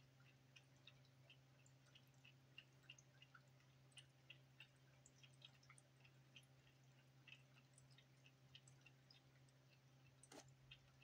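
Faint, quick ticks of a cat lapping water from an electric pet drinking fountain, about three laps a second, over the fountain pump's low steady hum. A slightly louder click comes near the end.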